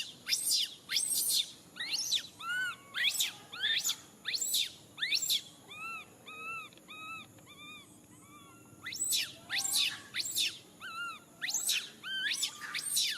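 Baby monkey crying in distress, as an infant separated from its mother: a string of shrill calls, each sweeping sharply upward in pitch, about two a second. In the middle they give way to shorter, lower arched whimpering calls, and the shrill rising cries start again a couple of seconds before the end.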